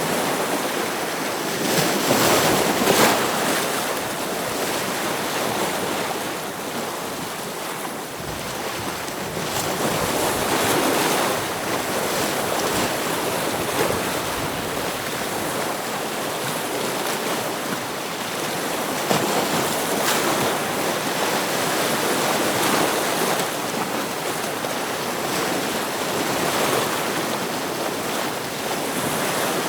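Ocean waves washing against rocks, a steady rush of surf that swells and falls every few seconds, with one stronger surge about three seconds in.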